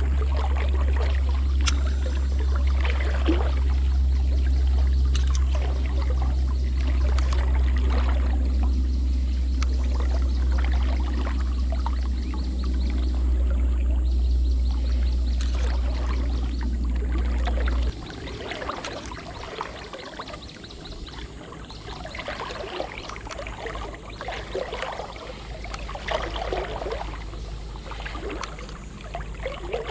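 River current swirling and splashing around a wading angler's legs, with many short splashes through it. A heavy low rumble lies under the water sound and cuts off suddenly about eighteen seconds in, after which the water is quieter.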